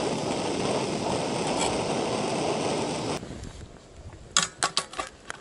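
A canister gas stove's burner roars steadily under a pot, then cuts off about three seconds in. After that it is quieter, with a quick run of sharp clicks and clinks from a frying pan handled over a small wood-burning stove.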